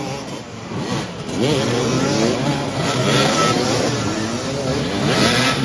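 Several motoball motorcycles revving up and down together, their engine notes rising and falling over one another as the riders jostle for the ball. The sound drops briefly at the start, then the revving builds again.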